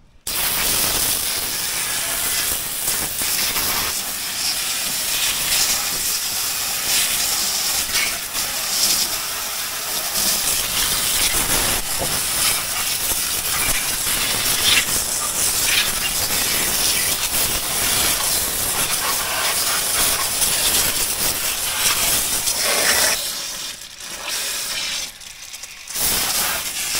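Garden hose pistol-grip spray nozzle hissing as a jet of water washes mud off the side-by-side's frame and underbody, spattering on the metal and caked mud. The spray drops off and pauses briefly near the end, then starts again.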